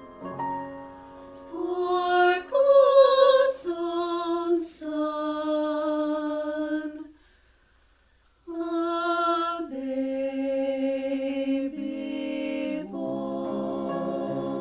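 Voices singing a slow, sustained sacred Christmas piece in chords, with vibrato on the held notes. About seven seconds in there is a pause of a second and a half before the singing resumes.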